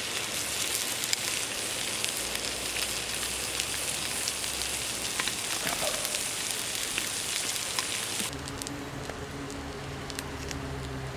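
A steady sizzling hiss with scattered sharp crackles, from cooking over a campfire. About eight seconds in it cuts off abruptly, leaving a quieter low steady hum.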